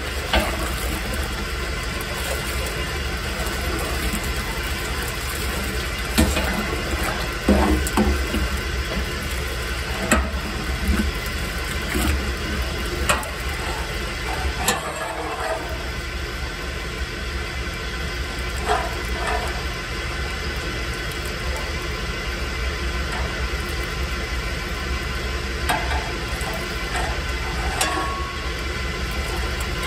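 Motor-driven malt mill running steadily: a low hum with a steady mechanical whine over it, and scattered short knocks and rattles.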